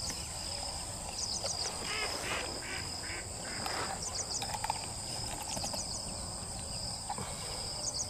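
Insects droning steadily at a high pitch, with a few short chirping calls over the drone.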